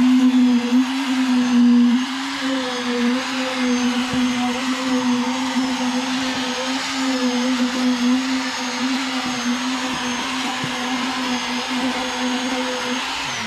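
Electric concrete poker vibrator running with a steady high motor whine, compacting freshly poured concrete; its pitch wavers slightly as it works. At the very end it is switched off and the pitch falls as it winds down.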